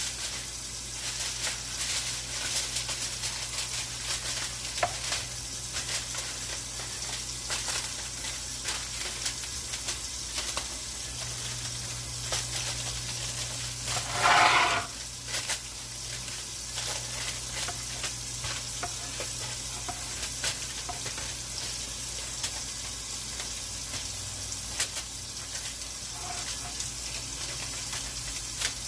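Steady sizzling crackle, like food frying, with a louder rustling burst about halfway through.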